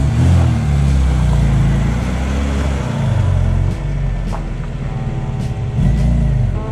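Engine of a 1990 Lada VAZ car driving, its note rising and falling as the throttle opens and closes, with a rise in revs near the end.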